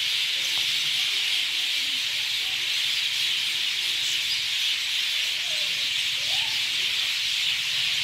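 Dense chorus of many birds chirping at once, blending into a steady, high, hiss-like din, with a few faint rising calls standing out about five and six seconds in.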